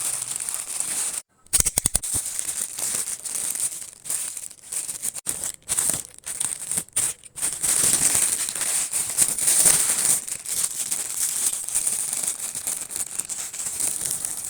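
Crinkling and rustling of paper or plastic packaging being handled, in an irregular run of short crackles with brief pauses.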